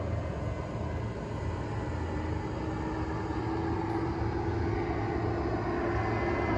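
Twin-engine jet airliner flying low overhead, its engine noise a steady rumble with a hum coming in about two seconds in, growing gradually louder as it approaches.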